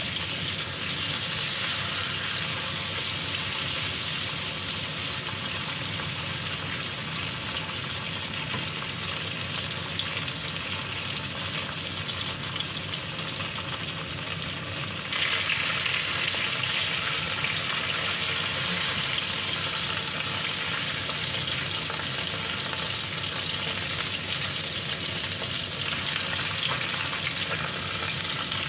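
Chicken breast fillets frying in hot oil in a nonstick pan: a steady sizzle that suddenly grows louder about halfway through.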